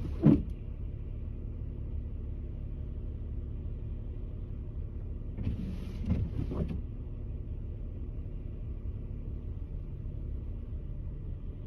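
Nissan Maxima idling while stopped, heard from inside the cabin as a steady low hum. Twice, at the very start and again about six seconds in, a short swishing sweep with a soft knock stands out, fitting the windshield wipers.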